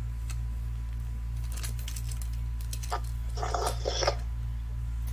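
Monster Jam toy trucks clicking lightly a few times as they are set down and lined up on the floor, over a steady low hum. A brief faint higher-pitched sound comes about three and a half seconds in.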